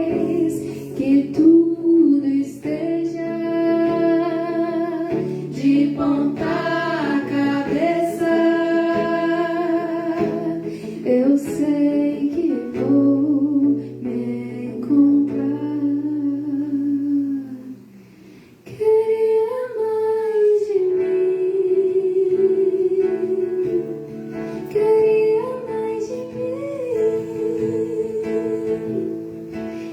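Live music: a voice carrying a melody over guitar accompaniment, with a brief drop in loudness about 18 seconds in.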